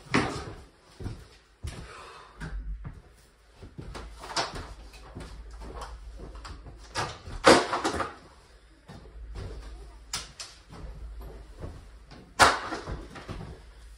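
Loose vinyl plank flooring being picked up and carried across a bare subfloor: a series of knocks and clatters as the planks are handled, with footsteps between. The loudest clatters come about halfway through and again near the end.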